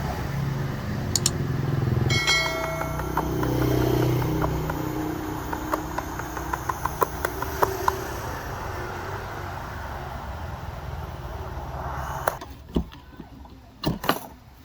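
Metal clinks and taps on a rusty electric drill's housing and rotor as it is worked apart, with one ringing metallic strike about two seconds in and scattered light clicks after it. This plays over a steady traffic hum that drops away near the end, leaving a few sharp knocks.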